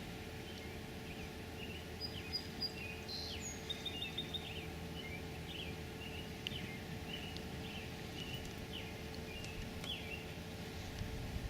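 Birds chirping, a quick run of many short calls and a few higher whistles, over a steady low background hum.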